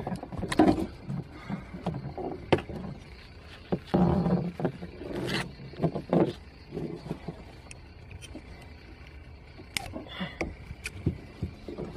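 Handling noises as a hook is worked out of a catfish's mouth over a landing net in a boat. Scattered sharp clicks and knocks come with short stretches of rustling.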